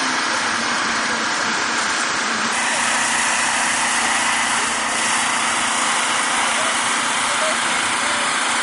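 An engine running steadily under an even hiss, with no change in level.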